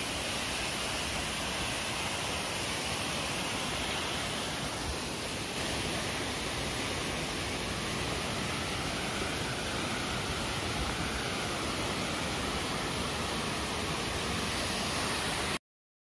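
Steady rush of falling or flowing water, as of a mountain waterfall or river, cutting off suddenly near the end.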